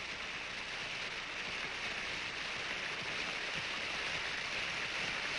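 Water pouring from the stone spouts of an ancient Inca aqueduct and splashing into a pool below: a steady splashing rush.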